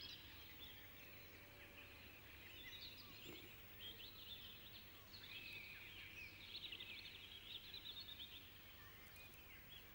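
Faint songbird song: runs of quick chirps and trills, loudest from about four to nine seconds in, over a low steady background hum.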